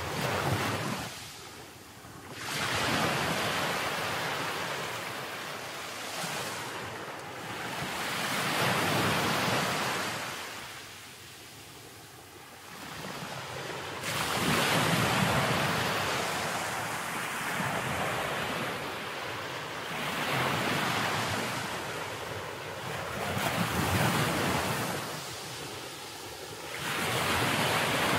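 Ocean surf breaking on a sandy beach, the wash swelling and falling back every few seconds, with wind rumbling on the microphone.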